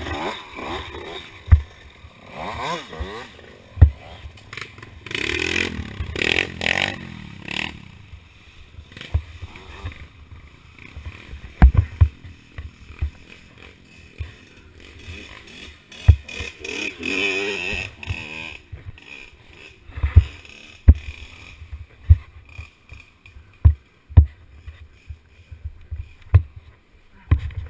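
Knocks, scrapes and clatter of a fallen dirt bike being handled and hauled upright, with other dirt bikes' engines revving past, loudest about five to seven seconds in and again around seventeen seconds.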